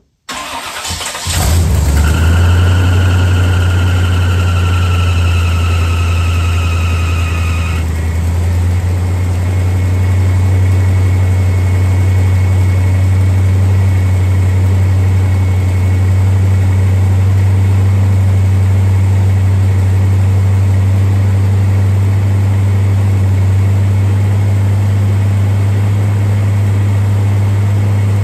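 Square-body Chevy C30 dually's carbureted engine cranking briefly and firing up, then running steadily at a fast idle on the closed choke. A high whine rides over the engine for the first several seconds and stops about eight seconds in, where the engine note changes slightly.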